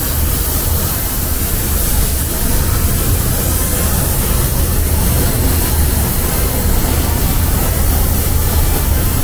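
Paint spray gun hissing steadily during spray painting, over a deep steady hum.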